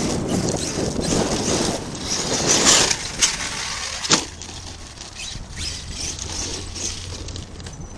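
Wind buffeting the microphone while an ARRMA Kraton 8S RC truck's electric motor whirs and its tyres churn through dirt and rocks, loudest between two and three seconds in. A single sharp knock comes about four seconds in, after which it is quieter.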